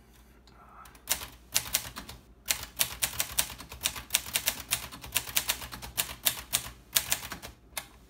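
1955 Groma Kolibri manual portable typewriter being typed on: a fast run of typebar strikes, about six a second, starting about a second in, with a brief pause a little after two seconds.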